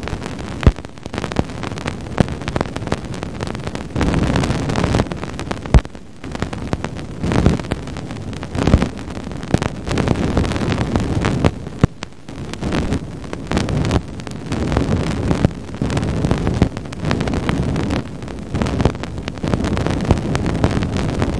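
Cassini's Radio and Plasma Wave Science instrument recording of the crossing of Saturn's ring plane, played as sound: a dense crackle of pops and clicks over a rushing hiss, swelling and easing in loudness. The pops are dust grains from the rings striking the spacecraft and its antennas.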